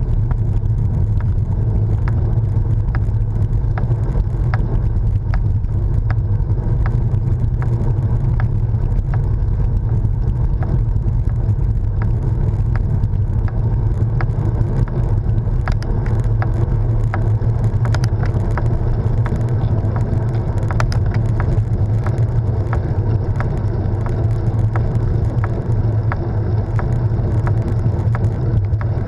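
Steady wind rush and road rumble picked up by an action camera on a moving road bike, with many small ticks and rattles throughout.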